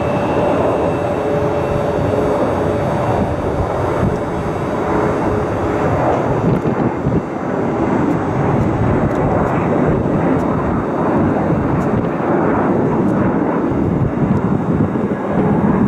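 Jet airliner's engines running at high power: a loud, steady rushing noise with a few faint steady tones in the first few seconds.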